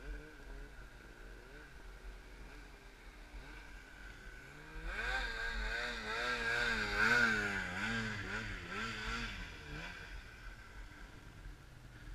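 Snowmobile engine revving hard in deep powder snow, its pitch rising and falling quickly as the throttle works. It swells from about five seconds in, is loudest in the middle and fades after about ten seconds; a fainter engine runs at the start.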